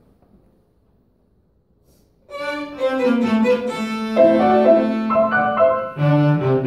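Piano trio of violin, cello and grand piano: near silence, then about two seconds in the three instruments come in together and play a classical chamber piece with held bowed notes, the cello entering low near the end.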